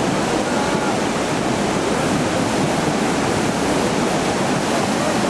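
River in flood, its swollen muddy water rushing past in a loud, steady roar of noise.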